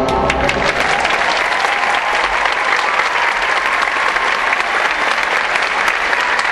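Theatre audience applauding: dense, even clapping from a large crowd, kept up at a steady level.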